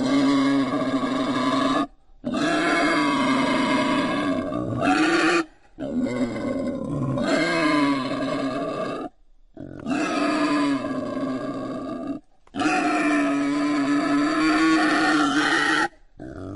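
Wild boar calls: long, drawn-out grunting cries with a wavering pitch, about five of them, each lasting two to three seconds, separated by short abrupt breaks.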